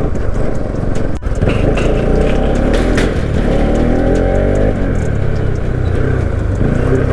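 Bajaj Pulsar 220F's single-cylinder engine running while the motorcycle is ridden, with a heavy rush of wind and road noise on the microphone. The engine note rises briefly in the middle.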